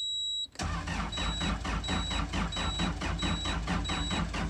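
Cat 277B track loader's diesel engine cranking on the starter in freezing cold without glow plugs: a fast, even chugging of compressions that starts about half a second in, after one long beep as the key is turned. The cab's warning alarm keeps beeping about once every 0.7 seconds while it cranks.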